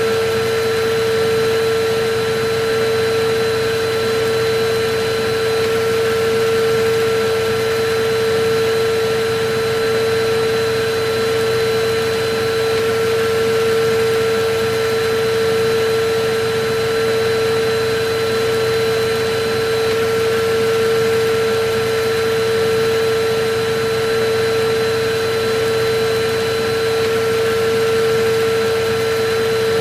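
Electric vacuum cleaner running steadily, a continuous motor whine with a strong hum and airy rushing noise, held without change.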